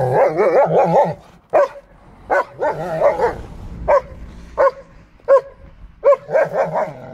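German Shepherd barking: a wavering, drawn-out run of barks at the start, then single short barks about every half second to a second, and another quick run of barks near the end.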